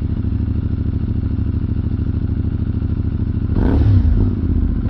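CFMoto 450MT parallel-twin idling through an aftermarket exhaust, then a short blip of throttle about three and a half seconds in that briefly raises the revs and lets them fall back. The new exhaust gives it a deeper, fuller note than stock.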